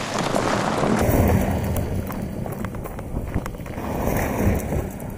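BMW X3 SUV driving on a gravel track: a rushing noise of tyres on loose gravel with wind on the microphone, swelling twice, with a few small stone ticks.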